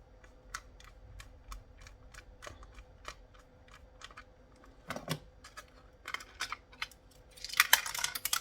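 A plastic radio-control handset being worked open by hand: scattered light clicks and ticks of plastic and small screws, a louder knock about five seconds in, then a dense clatter of plastic near the end as the case comes apart.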